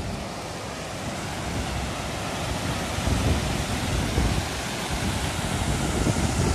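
Water rushing and splashing over a small concrete weir, a steady rushing noise that grows louder about halfway through.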